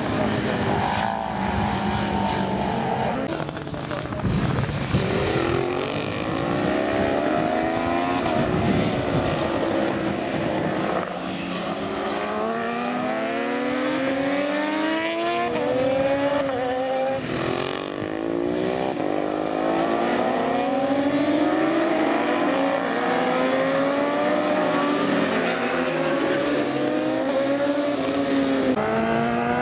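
Several 1000 cc superbike racing motorcycles passing at speed and accelerating hard. Their engine notes climb in pitch and drop back at each upshift, again and again, as the bikes come through in a pack.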